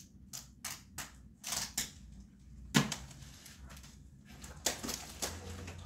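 A paper sign and poster being handled against a wall: rustling and crinkling paper with a string of short taps and knocks, the sharpest about three seconds in.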